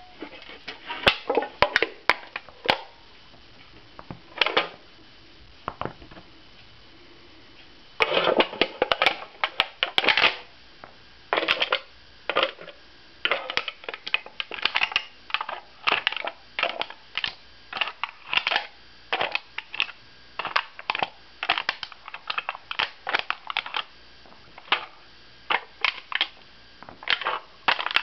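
Empty aluminium beer can crunching and crinkling under repeated stomps of rugby boots with long steel-tipped studs, which crush and puncture it. A few scattered stomps at first, then a steady run of them, one or two a second, from about eight seconds in.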